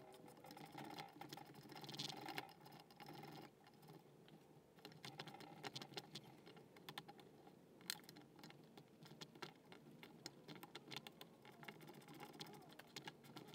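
Faint scattered clicks, taps and light scraping from gloved hands and a hand tool working on a rusted sump pump housing, with one sharper click about eight seconds in, over a faint steady hum.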